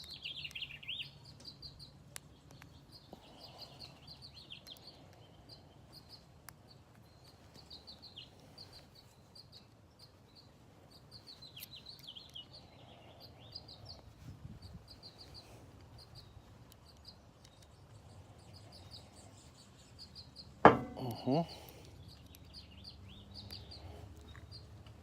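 Small birds chirping repeatedly in the background over a faint low hum, with one brief louder voice-like sound near the end.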